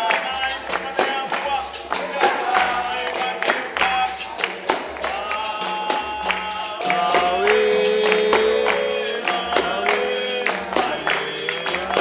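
Capoeira song: voices singing a melody over a steady, even percussion beat.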